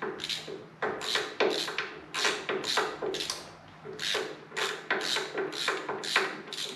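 A hand ratchet wrench worked back and forth in quick, uneven strokes, its pawl clicking on each stroke as it backs off a nut that is not yet loose enough to spin off by hand.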